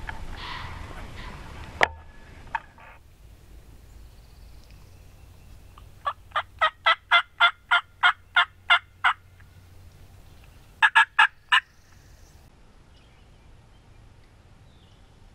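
Turkey hen yelps: a run of about a dozen evenly spaced yelps at about four a second, then after a short pause a quicker run of five. Two sharp clicks come about two seconds in, before the yelping.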